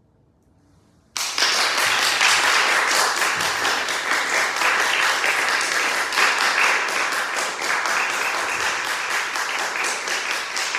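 A brief hush, then audience applause breaks out suddenly about a second in and carries on steadily.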